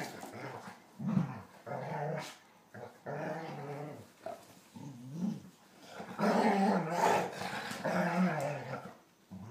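German Shorthaired Pointers play-fighting, growling in repeated bouts, loudest about two thirds of the way through.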